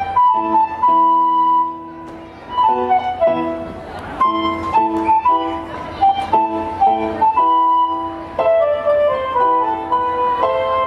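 Instrumental floor-exercise music: a melody of held notes moving over chords, with a short lull about two seconds in.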